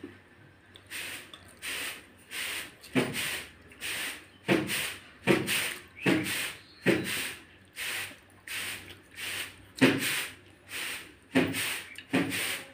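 A hand squeezing and mashing soaked rice in water in a steel bowl to make basi pakhala, a wet squelch repeated about every three-quarters of a second.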